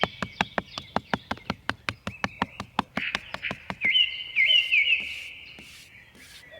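Birds chirping in short, quickly gliding calls, over a fast, even ticking of about six clicks a second that stops about three seconds in. The chirps fade out near the end.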